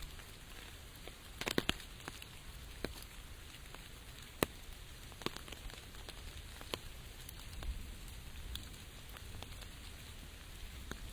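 Rain falling with a steady hiss, with scattered sharp taps of drops striking close by, several bunched together about one and a half seconds in.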